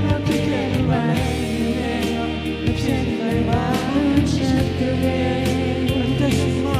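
Live band music over a loud sound system: a singer's voice over steady bass and regular drum beats.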